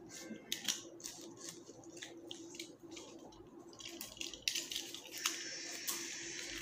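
Light clicks and snips of floral shears on rose stems, then a rustle of leaves for about two seconds near the end as a rose is pushed into a foliage arrangement, over a faint steady hum.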